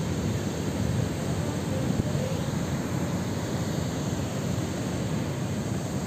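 Steady rushing of river water pouring over the long crest of a masonry weir and down its stepped face.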